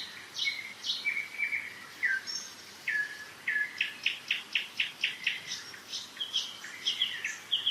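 Several songbirds singing together in spring, a steady overlapping stream of short high chirps and quick trills.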